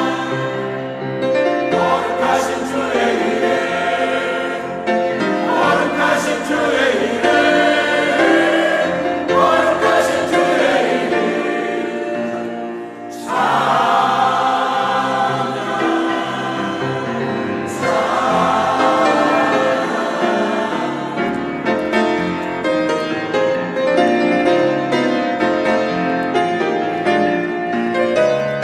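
Church choir singing a gospel hymn in held, full chords over steady accompaniment, with a brief drop in loudness about thirteen seconds in before the singing resumes.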